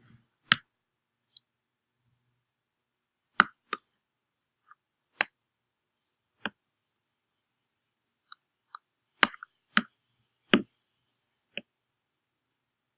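Irregular sharp clicks and knocks, about ten in all, with silence between: a stirring utensil knocking against the container as yeast and warm water are mixed.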